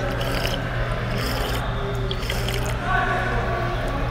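Room noise of a large training gym: a steady low hum with a few faint, brief sounds scattered through it.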